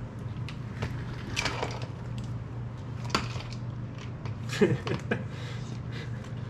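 A dog nosing and pawing a hard plastic treat-dispensing ball toy across the floor: a few knocks and clatters as it tips and rolls, the loudest cluster about two-thirds of the way in, over a steady low hum.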